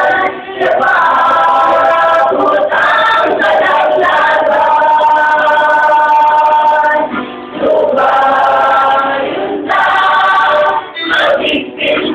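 A small mixed choir of women's and men's voices singing together in long held notes, with brief breaks between phrases.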